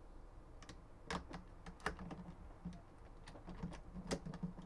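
Irregular light clicks and rattles of a Thompson Center Compass bolt being handled and slid back into the rifle's receiver, with a few sharper clicks among them.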